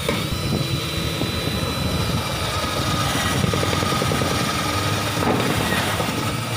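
Loud, steady machine noise with a few high whining tones over it, starting suddenly and cutting off suddenly near the end.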